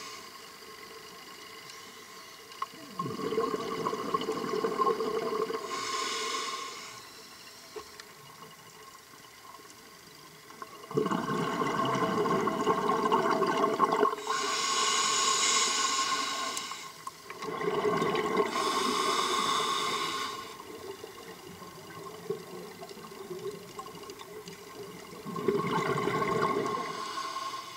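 Scuba diver breathing through a regulator underwater: about five slow breaths, each a rush of exhaled bubbles with a higher hiss of air, spaced several seconds apart, over a steady faint hiss.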